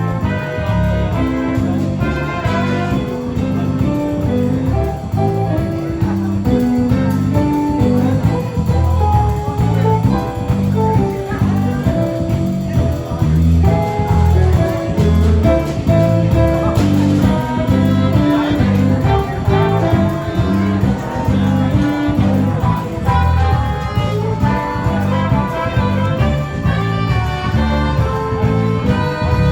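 Background music: an upbeat brass-led instrumental with trumpets and a steady bass line.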